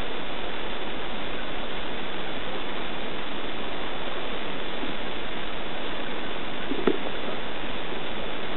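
Steady rushing noise of wind on a small action camera's microphone, with one short sharp sound about seven seconds in.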